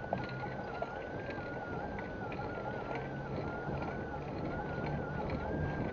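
Bicycle riding along a paved street: steady rolling and rattling noise from the moving bike. A few sharp knocks come near the start and about a second in. A thin high whine runs underneath, wavering slightly in pitch.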